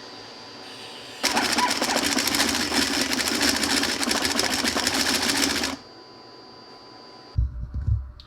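Stepper motors of a Rubik's cube solving robot turning the cube's faces in one fast, dense run of clicking moves lasting about four and a half seconds. The run starts about a second in and cuts off suddenly. A few low thumps follow near the end.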